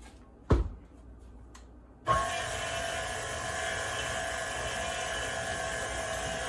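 Tilt-head stand mixer: a thump about half a second in as its head is lowered onto the bowl, then about two seconds in the motor starts and runs steadily with a whine, the paddle beating peanut butter Swiss meringue buttercream.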